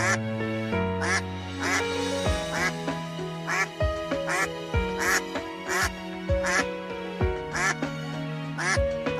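Duck quacks repeating in a steady rhythm over background music with held chords.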